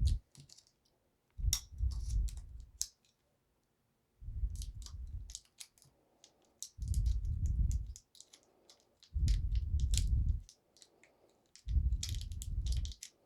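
Small metal clicks and light rattling as a keyring charm is worked onto a Victorinox Pioneer pocketknife, with low rumbles of handling noise about every two and a half seconds.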